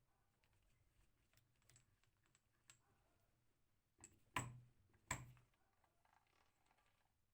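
Faint scattered light clicks, then two sharper knocks less than a second apart about four seconds in.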